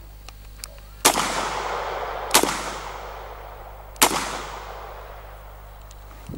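Three .44 Magnum shots from a Rossi Circuit Judge revolver rifle, about a second and a half apart, each followed by a long echo that dies away.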